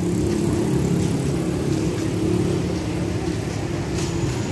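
Steady drone of street traffic, with vehicle engines running.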